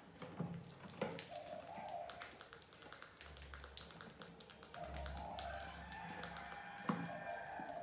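Rats' claws tapping and scratching on a clear plastic jar as they climb over it: a rapid, irregular run of small clicks, with a sharper knock about a second in and another near seven seconds.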